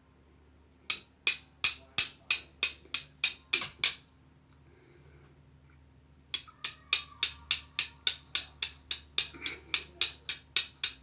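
Flint and steel being struck repeatedly to throw sparks: sharp, quick scraping strikes about three a second, in two runs with a pause of about two seconds between them.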